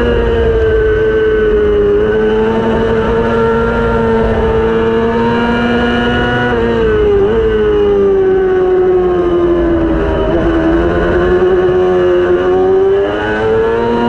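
600cc racing motorcycle engine running at high revs under race conditions. Its pitch holds fairly steady, dips sharply about seven seconds in, sags and recovers around ten seconds, then climbs again near the end.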